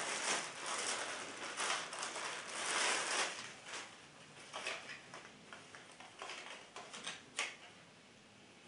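Clear plastic bag crinkling and rustling as a cap is pulled out of it, loudest over the first three seconds. Lighter handling crackles follow, with one sharp crackle about seven seconds in, then it dies down.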